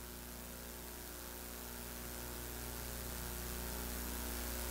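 Steady electrical mains hum with a layer of hiss, slowly growing louder: the background noise of the live microphone and sound system.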